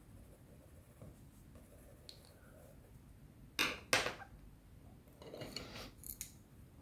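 Colored pencils being handled: two sharp clicks about a third of a second apart, then a shorter stretch of clattering, as pencils knock against each other or the desk.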